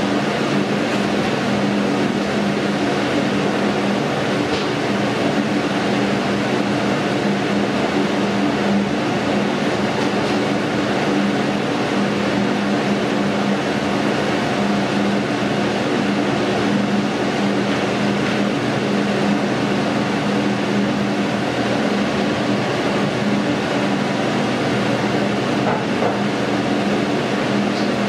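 Steak sizzling on a hot grill, a dense steady crackle over a constant low hum.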